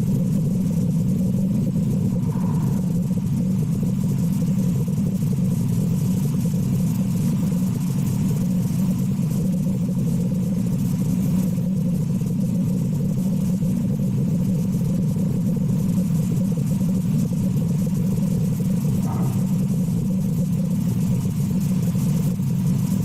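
A steady low rumble, like an engine running, that holds level throughout with no clear breath or blow standing out above it.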